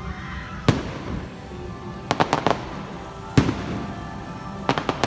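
Fireworks shells bursting: a single sharp bang, a quick run of four reports about two seconds in, the loudest bang a second later, then another rapid run near the end. Show music plays steadily underneath.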